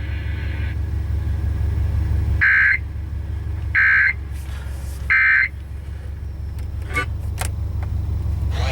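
Emergency Alert System end-of-message tones: three short, identical digital data bursts about 1.3 s apart, closing a National Weather Service severe thunderstorm warning. They sound over a steady low hum.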